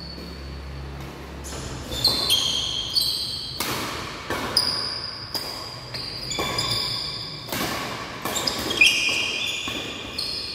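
Badminton rally: rackets striking the shuttlecock about once a second, with short high squeaks of shoes on the court floor and footfalls between the hits.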